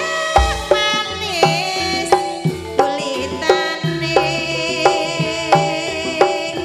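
Live Javanese band music: a hand drum strikes about three times a second under steady pitched melody notes, with wavering, sliding high lines over them.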